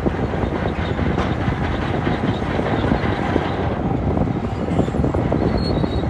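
Shantui DH17-C2 crawler bulldozer working under load, its diesel engine running steadily under a dense clatter of tracks and rock as the blade pushes a pile of rock forward.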